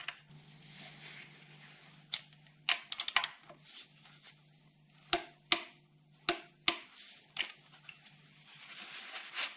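Ratchet torque wrench clicking as a new sump plug is tightened into the oil pan to 30 Nm: a quick run of ratchet clicks about three seconds in, then five single sharp clicks spaced about half a second to a second apart. A steady low hum runs underneath and stops near the end.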